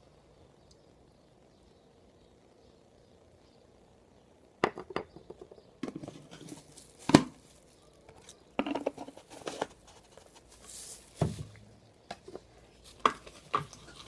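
Faint room tone, then, about four and a half seconds in, hands working sculpting materials: scattered sharp taps and knocks with some crinkling, and a brief rustling hiss about eleven seconds in.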